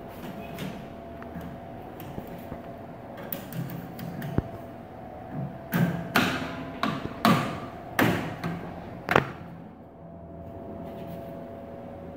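Knocks and clatters as glazing bead strips are handled and fitted against the window frame, about five sharp hits between six and nine seconds in, over a faint steady hum.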